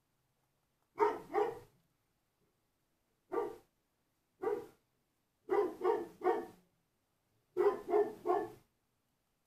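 A dog barking: about ten short barks in little runs of one to three, the last two runs of three barks each.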